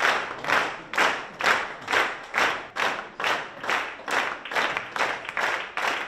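Audience applauding in rhythm, many hands clapping together at a steady beat of about two claps a second.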